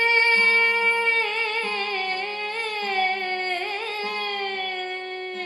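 A woman singing Carnatic music, holding one long note that about a second in begins to waver in quick ornamental oscillations (gamakas) and slowly slides down in pitch, over a steady plucked drone.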